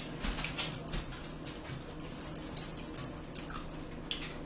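Metal forks clicking and scraping against plates, with close chewing, over a steady low hum. The clicks come thickly in the first two seconds and thin out toward the end.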